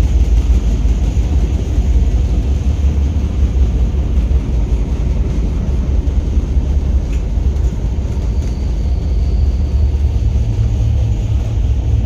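Steady low rumble of an Indian Railways LHB passenger coach running along the track, heard from inside the coach.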